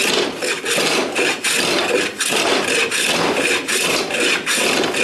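A metal hand plane shaving a wooden handle blank held in a vise, in quick repeated strokes of about two a second, each a dry rasping hiss.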